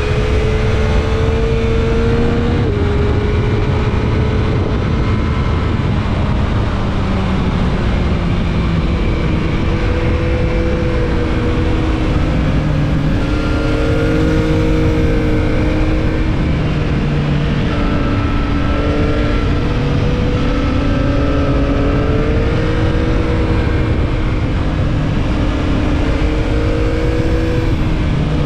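Yamaha MT-09 SP's three-cylinder engine running under way, its pitch rising and falling with throttle and gear changes. Heavy wind rush over the microphone sits under the engine.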